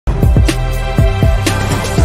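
Intro theme music with a steady beat: deep kick drums and a sharp snare hit about once a second over sustained chords. It starts abruptly at the very beginning.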